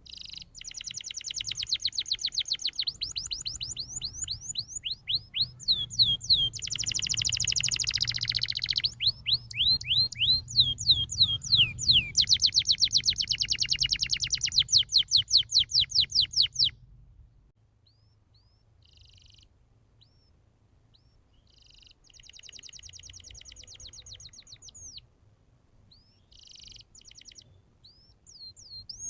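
Domestic canary singing in long, fast trills of rapidly repeated high notes, changing from one trill to the next. The song is loud for the first half, then after a brief pause it goes on in softer, shorter phrases.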